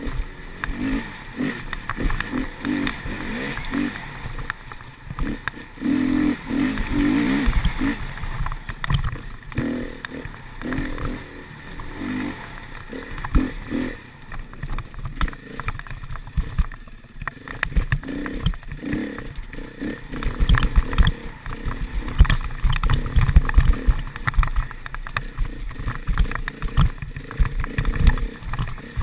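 Enduro motorcycle engine revving up and down as the bike is ridden hard over a rough forest trail, its pitch rising and falling with the throttle, with frequent knocks and rattles from bumps, heaviest in the second half.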